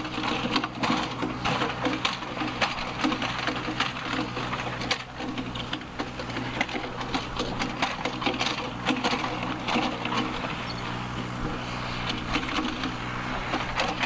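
Takeuchi TB216 mini excavator running steadily, with frequent clanks, knocks and scrapes from the arm and bucket as it digs.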